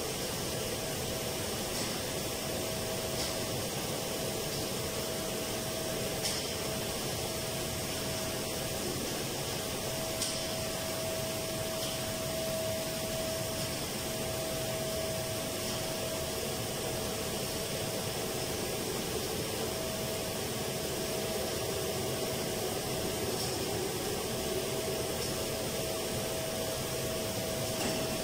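Steady whooshing air and machinery hum of HVAC equipment running in a mechanical room, with a steady mid-pitched tone that breaks off briefly a few times. A few faint knocks sound over it.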